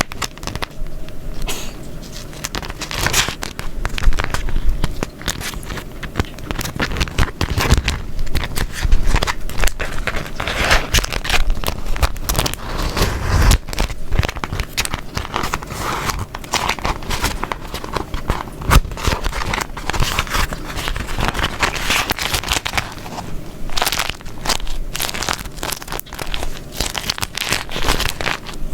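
Beeswax wrap being crumpled and folded by hand, giving a run of dense, irregular crinkles and sticky crackles.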